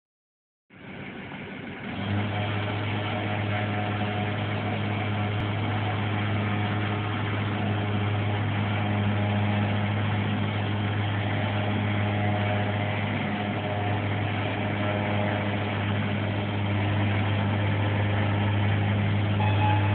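Rogue Otter truck-mounted boat loader's motor running steadily as its arm lifts and tips a small aluminum boat off the pickup's rack, a low, even hum that starts about two seconds in.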